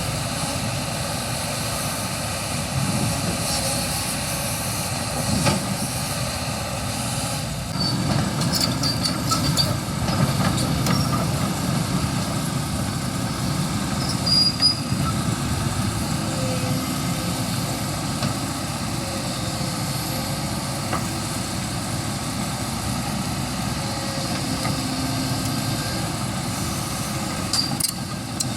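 Kobelco excavator's diesel engine running steadily, with a few short metallic clanks and brief high squeaks from the machine's steel parts as it moves.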